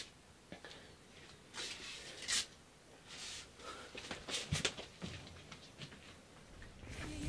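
Scattered rustles and shuffles of a person moving about, with a few sharp clicks and knocks about four and a half seconds in. Music begins to swell in near the end.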